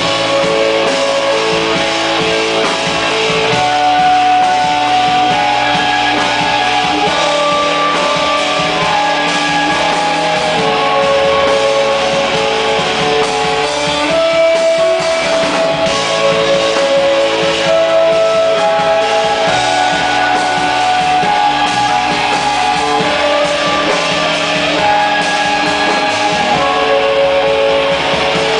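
Live instrumental rock from a keyboards-and-drums duo: keyboards play a melody of held notes over a busy drum kit with steady cymbals.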